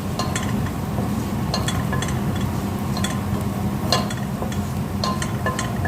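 A cooking utensil stirring beef frying in a pan, scraping and clinking against the pan every half-second to a second, over a steady frying sizzle.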